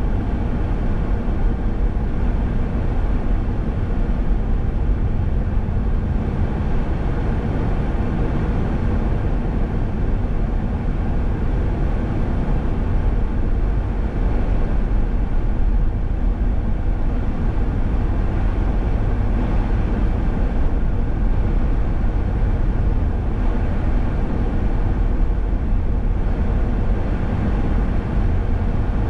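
A car driving steadily on a paved road: constant low tyre rumble and engine noise, with no sudden events.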